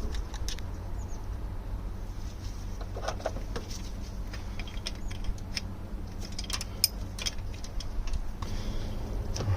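Scattered small metallic clicks and taps as a heater valve fitting is worked and tightened by hand, over a steady low hum.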